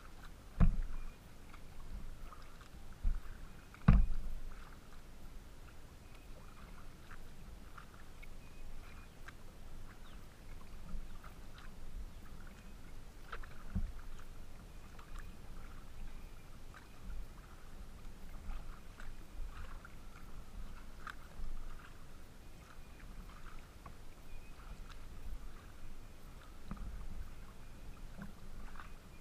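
Wilderness Systems Pungo 140 kayak being paddled: irregular splashes of paddle strokes and water lapping against the hull, with two loud knocks on the hull near the start.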